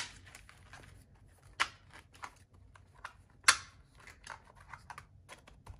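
Handling paper bills and budget envelopes: light rustling and faint ticks, with three sharp clicks or snaps spaced a little under two seconds apart.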